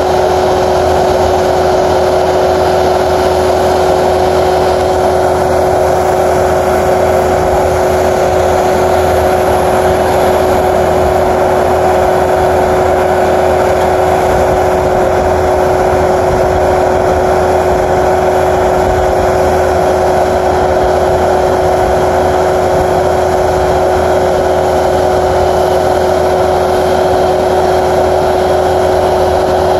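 Heavy diesel road-paving machinery running steadily: a double-drum asphalt roller, a dump truck and a wheeled paving machine at work, making a continuous engine drone with a steady hum.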